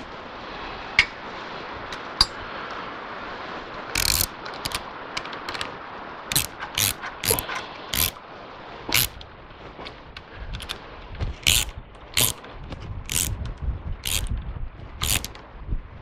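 Irregular sharp metallic clicks and clacks as a steel wire-rope lift cable and its hardware are handled against a steel frame, starting a few seconds in and coming every half second to a second.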